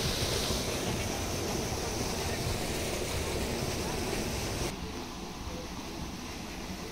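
Steady rushing hiss of a jet of water pouring from a stone spout into a stone tank. About two thirds of the way through it drops abruptly to a quieter hiss.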